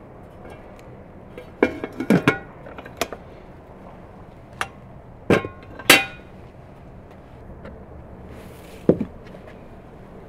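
Ceramic dishes and their wooden lids being set down and knocked against each other on a wooden tray: a run of sharp clinks and knocks, some with a short ringing, and one more knock near the end.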